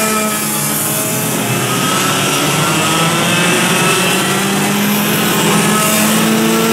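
Several racing kart engines running at speed together, their overlapping pitches slowly rising and falling as they accelerate out of and ease into corners.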